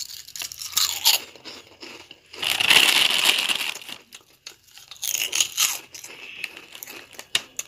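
Plastic snack packet crinkling as it is handled and tipped over a steel bowl, with small clicks of snack pieces; the loudest crinkling comes in a long burst in the middle and a shorter one a little later.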